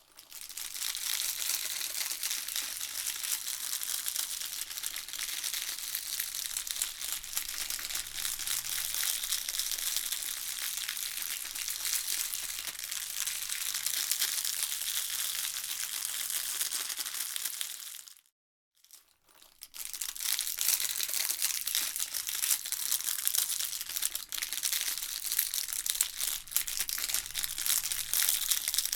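Candy wrapper being crinkled and crumpled by hand, a dense continuous crackling that stops for about a second roughly two-thirds of the way through, then carries on.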